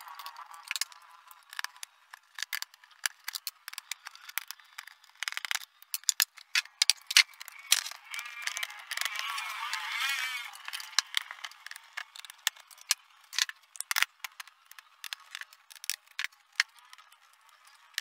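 Irregular clicks, knocks and rattles of hard plastic housing parts and tools being handled as an LED TV's speaker box and rear casing are taken apart.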